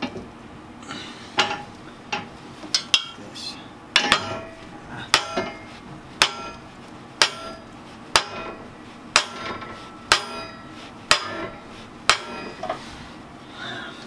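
Sharp metal-on-metal knocks, each with a brief ring: a few irregular ones, then a steady run of about one a second. They come from work to force a seized piston out of a 1960 John Deere 1010 engine block.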